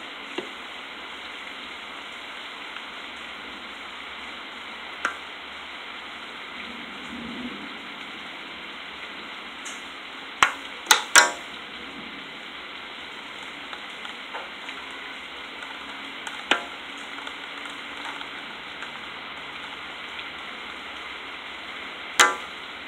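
Steady hiss of heavy rain during a hailstorm, with a few sharp ticks on top: three in quick succession about ten seconds in and one more near the end.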